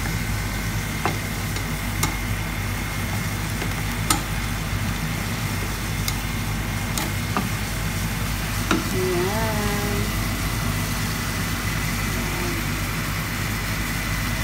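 Wooden spatula stirring chicken pieces in a simmering soy-sauce broth in a pan, with scattered light taps and scrapes of the spatula against the pan over a steady low hum.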